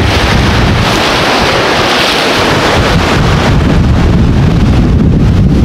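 Loud gale-force wind buffeting the microphone over the rush of breaking waves around a sailboat's bow, the hiss of the water strongest in the first few seconds.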